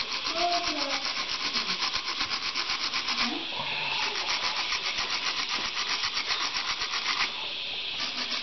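Hand wire brush scrubbing corroded 12-volt battery terminals in quick back-and-forth strokes, cleaning them for good contact. The scrubbing pauses briefly about three seconds in and again near the end.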